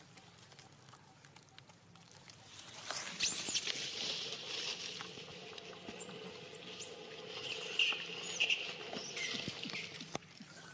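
Long-tailed macaques squealing: high-pitched calls that sweep up and down in pitch, starting about three seconds in and dying away near the end.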